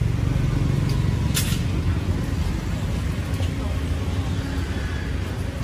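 Street traffic with a vehicle engine running steadily close by, and a short hiss about a second and a half in.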